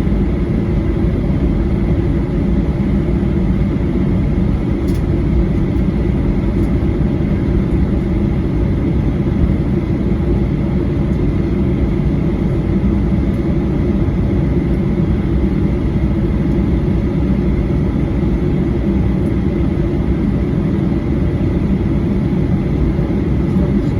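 Steady cabin noise inside a Boeing 737-800: an even low rumble of engines and airflow with a faint high whine held on one pitch.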